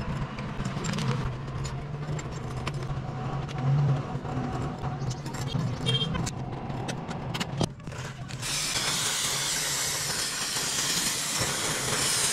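Motorcycle engine running steadily with light scattered clicks. About eight seconds in it gives way to a steady hiss.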